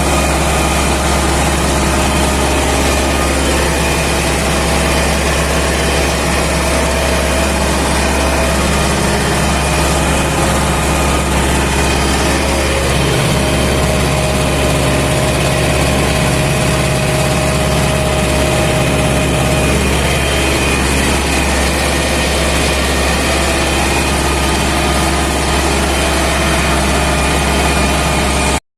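MTZ-80 tractor's four-cylinder diesel engine running steadily and loudly, close to the microphone.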